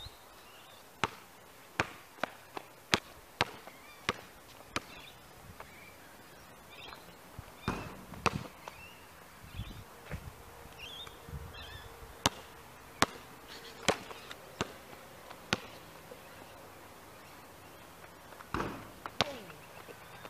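Basketball dribbled on an outdoor asphalt court: sharp, separate bounces in quick runs of roughly two a second, with pauses between the runs.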